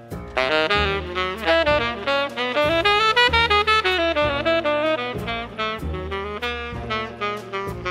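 Jazz ensemble of saxophones, brass, tuba, piano, upright bass and drums playing live, a saxophone carrying the melody over the horns with a walking bass line and cymbal strokes.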